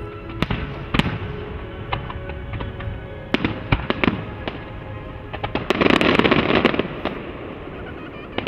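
Aerial fireworks: several sharp shell bursts in the first few seconds, then a dense burst of crackling about six seconds in.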